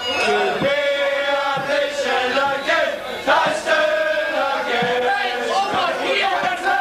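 A group of men singing a song together in unison, loud, with long held notes.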